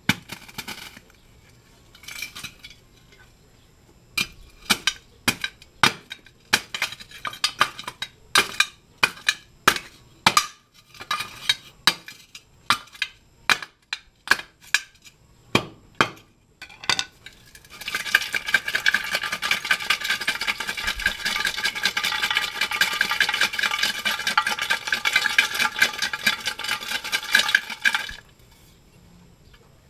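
Steel bar driven down into a catalytic converter to knock out its ceramic honeycomb: a run of sharp, ringing metal clanks, then about ten seconds of rapid, continuous clanking and rattling inside the converter's shell that stops abruptly near the end.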